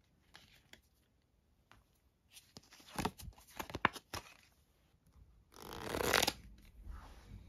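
A deck of Good Pals Chancers playing cards being handled. There are a few sharp card snaps around the middle, then a dense fluttering burst of under a second as the deck is riffled from hand to hand.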